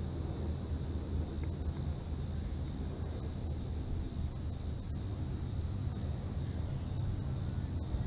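Outdoor ambience ahead of a thunderstorm: a steady low rumble with no distinct thunderclaps, and a high chirp pulsing evenly about twice a second above it.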